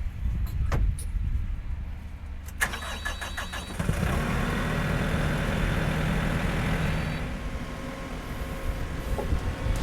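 Skid steer engine running while a hydraulic breaker-style post driver hammers a 6-inch post: rapid repeated impacts begin about two and a half seconds in, and the engine works harder and louder for a few seconds after that.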